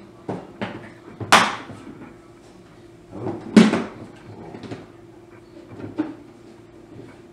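Kitchen containers and utensils being handled on a counter while a breading mixture is set up: a few scattered knocks and clatters, the two loudest about a second and a half in and about three and a half seconds in.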